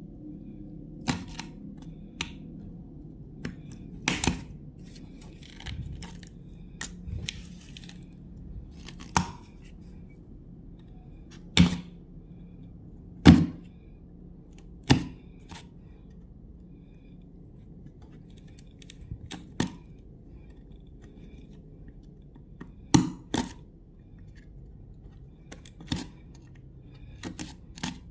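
Sharp, irregular clicks and ticks of a small blade chipping and scraping at a piece of agarwood, one every second or two, some louder than others, over a faint steady hum.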